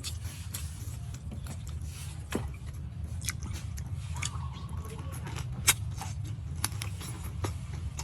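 Wet chewing and biting of raw seafood: irregular sharp clicks and smacks, a few of them louder, over a steady low hum.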